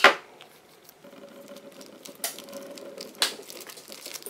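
Hands squeezing and working a cut-open clear vinyl squishy toy filled with jelly water beads, pushing the beads out: soft crinkling and rubbing of the plastic, with sharp clicks at the very start and about two and three seconds in.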